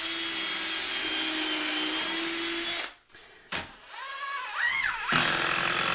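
Power drill driving screws through a door jamb into the framing: one steady run of about three seconds, then a pause, a short whine that rises in pitch, and another loud run near the end.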